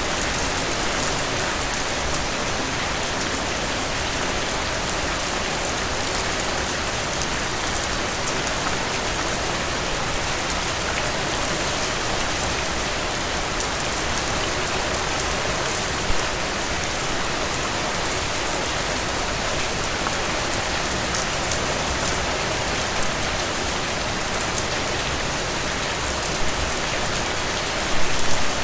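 Steady heavy rain falling on surfaces, with drips and splashes in it; a couple of louder drops stand out, one about halfway through and a short cluster near the end.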